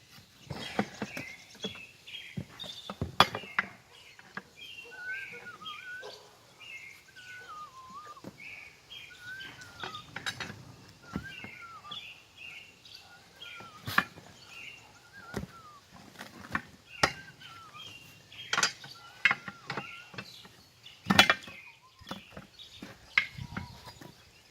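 Irregular sharp clanks and knocks of steel tools against a military split-rim wheel as the tire and lock ring are worked free. A songbird warbles and chirps in the background through the middle.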